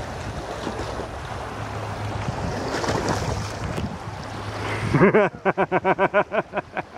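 Wind buffeting the microphone over a low steady hum. About five seconds in, a loud, rapid series of about ten short pitched notes follows, each rising and falling, at about five a second.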